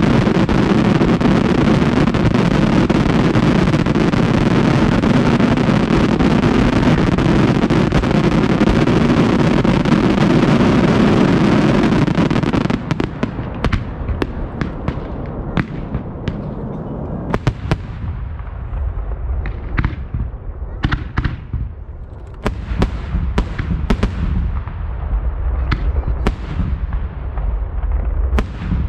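Fireworks display: a dense, unbroken volley of bangs for about the first twelve seconds stops suddenly, then individual shell bursts follow one at a time, each with an echoing tail.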